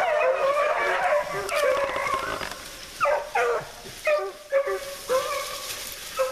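A pack of beagles baying while running a rabbit, several hounds' voices overlapping in long drawn-out bawls, then breaking into separate short falling yelps in the second half.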